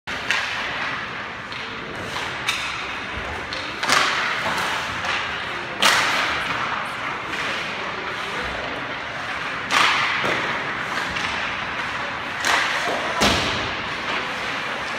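Hockey pucks struck with sticks and hitting goalie pads, boards and net, several sharp knocks at irregular intervals, each echoing in the rink. A steady background hum and hiss runs underneath.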